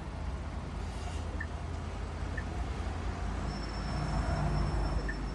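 Steady low hum of a Chery car idling, with a few faint, short ticks.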